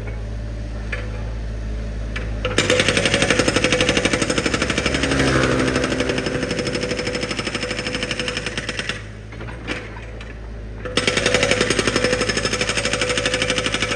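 A construction drilling machine's engine running, then its percussive drill hammering rapidly and steadily from about two and a half seconds in. The hammering stops for about two seconds near the middle, then starts again.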